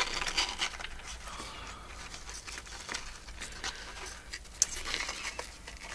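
Ribbon and paper being handled: light rustling and scattered small clicks as a thick ribbon is pulled through the hole of a paper tag, with a sharper tick near the start and another about two-thirds of the way through.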